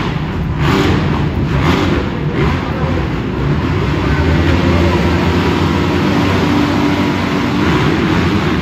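A full gate of motocross bikes revving together at the starting line, then launching off the gate with their engines held at high revs.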